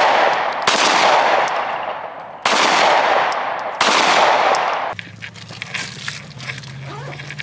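Three single gunshots, about a second and a half apart, each followed by a long echoing tail. About five seconds in the shooting stops and a low steady hum is left.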